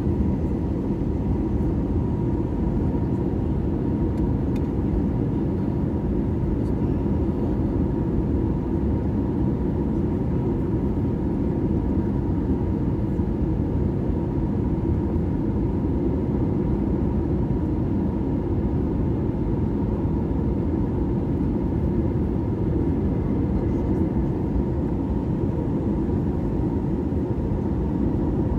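Steady cabin noise of an Airbus A320-232 heard from a window seat over the wing, as the airliner descends towards landing: a low, even rumble of its IAE V2500 engines and the airflow, with a faint steady tone above it.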